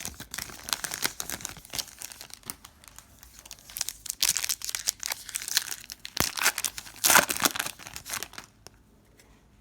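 Trading card pack wrapper being torn open and crinkled by hand, a dense crackling that peaks about seven seconds in and dies away near the end.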